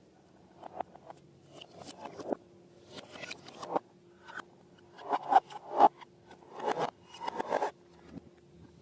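Irregular bursts of scraping and rubbing from balloons and slime being handled and worked by hand, loudest in the second half, over a faint steady hum.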